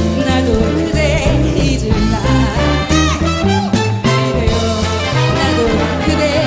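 Band music with a steady bass beat, playing a Korean pop ballad.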